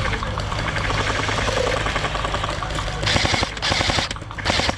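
Airsoft electric guns firing in rapid full-auto, a fast even run of clicks, with louder bursts about three seconds in and again near the end.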